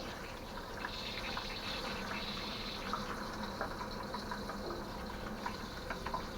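Water running steadily out of a water heater tank's drain valve and filling a container, with small splashes and drips, as the tank is partly drained.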